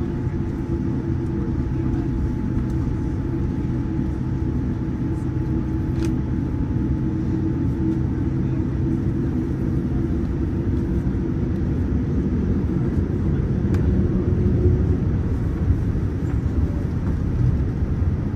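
Cabin noise of a Boeing 787-9 taxiing: a steady low hum and rumble from the GE GEnx-1B engines at idle and the rolling aircraft, with a faint higher whine that fades out about halfway through. The noise grows slightly louder later on.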